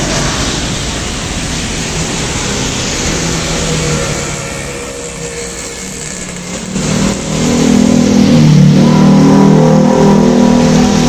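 Traffic on a wet road, with tyres hissing on the wet asphalt, then a heavy LPG tanker truck's diesel engine running as it passes close, the loudest part coming in the last few seconds. Motorcycles ride alongside it.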